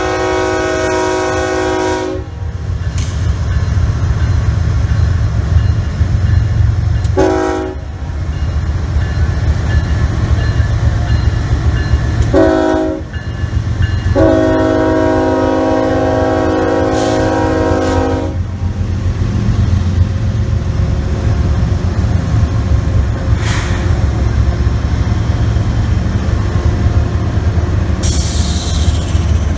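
A freight train's Union Pacific GE ES44AC diesel locomotives rumble past close by, engines and wheels running steadily. Over this the lead unit's multi-chime air horn sounds a chord: a held blast ending about two seconds in, two short blasts, then a long blast of about four seconds midway.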